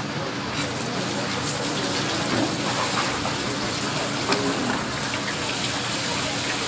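Spray faucet running and splashing onto a cutting board as squid is rinsed under it by hand; the water comes on about half a second in.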